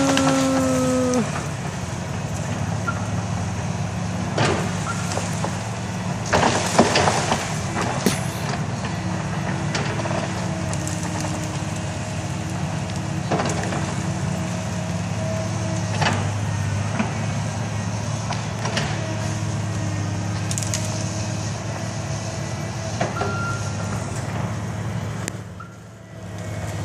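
Excavator's diesel engine running steadily under load, with a whine that comes and goes. Sharp cracks and crashes of trees being pushed over and snapping break in several times, loudest about seven seconds in.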